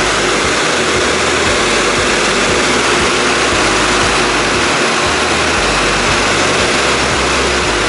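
Steady loud drone of a small propeller aircraft's engine, mixed with wind rushing in through the open jump door, heard from inside the cabin at altitude.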